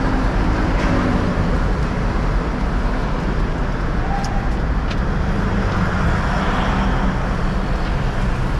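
An old truck's diesel engine idling steadily, with road traffic around it.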